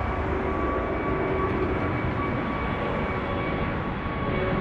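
Large jet airliner flying low overhead with its landing gear down: steady jet engine noise with a thin high whine running through it.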